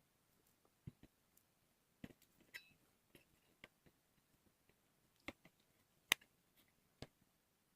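Near silence broken by scattered faint clicks and light taps, about a dozen at irregular intervals. The sharpest comes about six seconds in.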